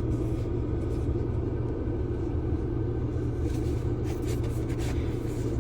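Steady low rumble of a car, an even hum with no change in level.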